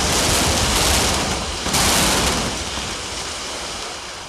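High-rise building collapsing in an explosive implosion: a dense roar of falling concrete and debris that surges again about two seconds in, then slowly dies away.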